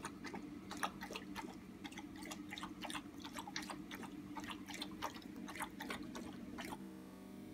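Newborn puppy's wet mouth clicks and smacks, about three a second, as it roots with its mouth open while being held. Music starts near the end.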